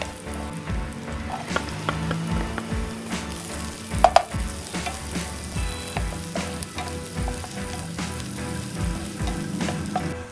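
Food sizzling as it fries in a pan, stirred with a utensil that scrapes and clicks against the pan. There is a sharp clank about four seconds in.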